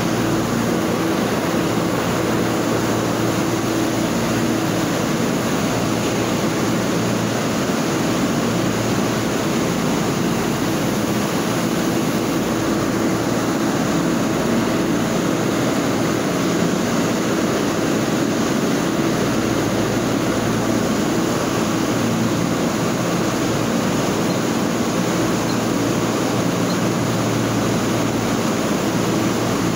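Steady factory-floor machinery noise: a constant mechanical drone with a low hum, from plant equipment running around a conveyor line.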